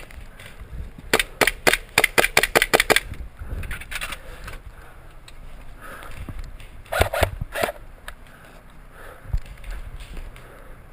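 Airsoft gun firing: a rapid string of about ten sharp snapping shots, about five a second, then two quick pairs of shots several seconds later.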